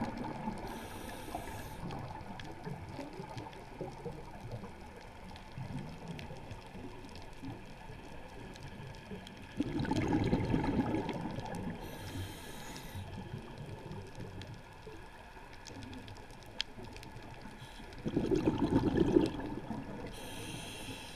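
Scuba diver breathing through a regulator underwater. Two loud surges of exhaled bubbles come about ten seconds in and near the end, and short hisses of inhalation through the demand valve come about a second in, about twelve seconds in and at the very end. Between breaths there is low underwater rumble with faint ticks.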